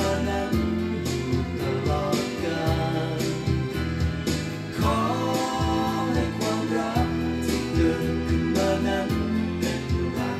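Thai pop love song playing from a CD: a band with a steady drum beat under sustained chords, with a male voice singing in places.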